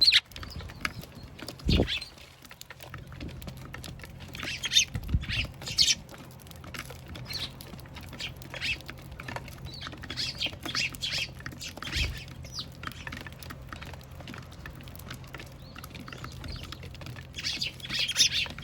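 Eurasian tree sparrows chirping in bursts of short calls, with light tapping and a few dull low thumps.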